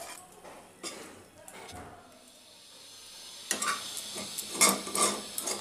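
Steel spatula scraping and clinking against an iron kadai and a steel plate while fried spice filling is scooped out of the pan. Mostly quiet at first with a faint clink about a second in, then a run of short scrapes and clinks in the second half.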